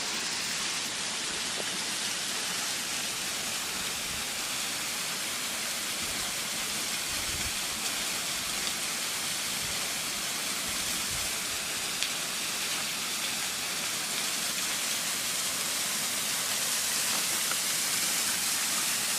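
Waterfall pouring, a steady rushing hiss of falling water that grows slightly louder near the end.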